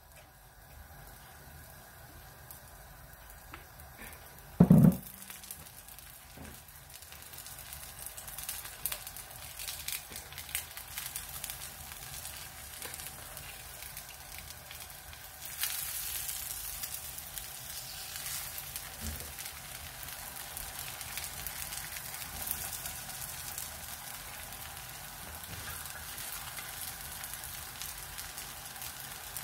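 Cooking oil sizzling and crackling under a dosa on a tawa at full flame, growing louder about halfway through. A single short thud about five seconds in.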